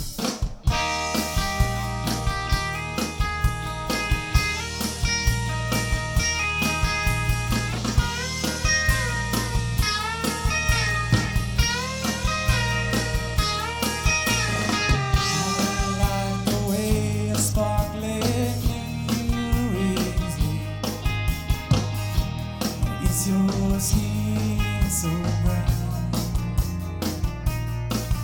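Live rock band playing an instrumental passage: electric guitars over bass and a drum kit, kicking in suddenly at the start. Through the middle a lead guitar plays bent, wavering notes.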